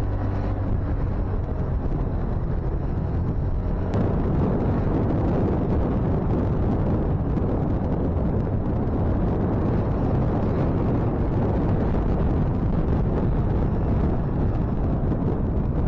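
Motorcycle engine running under a rushing noise. About four seconds in, this gives way to heavy wind buffeting on the microphone as the bike rides on.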